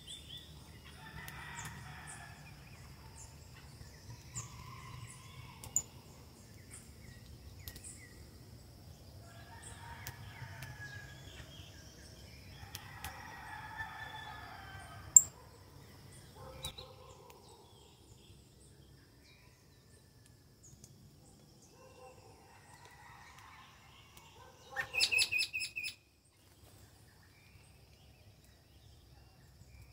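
Roosters crowing, with small birds chirping in short high notes and a few sharp clicks. There is a short, loud, high-pitched call about 25 seconds in.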